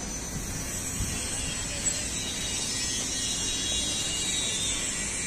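Steady outdoor background noise: an even high hiss with a couple of faint knocks about one and two seconds in.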